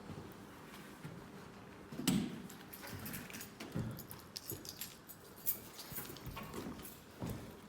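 Slow footsteps and handling noise: scattered light scuffs and clicks, with a low knock about two seconds in.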